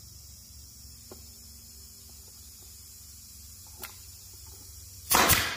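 Pneumatic nail gun firing once near the end, driving a nail into a wooden joint: a sharp crack that trails off over about half a second. Before it come two faint light taps.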